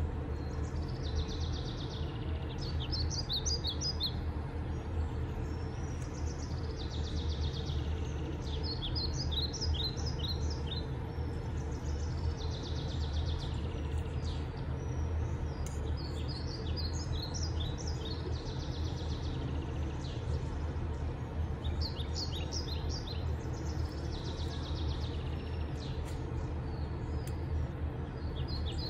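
A songbird singing the same short phrase every five or six seconds: a buzzy note followed by a quick run of high chirps, over a steady low hum.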